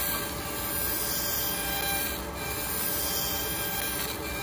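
CNC cutting machine running a cut, making a steady, even hissing mechanical noise.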